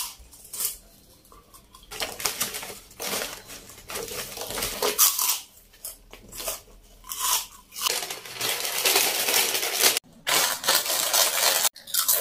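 Close-miked crunching of crisp fried snacks, wheel-shaped fryums and chips, being bitten and chewed in a string of irregular short bursts, broken off abruptly twice near the end.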